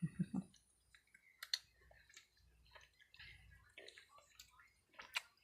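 Faint, scattered clicks and taps of small plastic toys and packaging being handled, with a short vocal sound at the start and a sharper click about a second and a half in.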